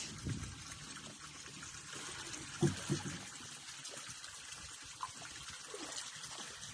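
Water trickling and pouring steadily, with two brief low thumps about two and a half seconds in.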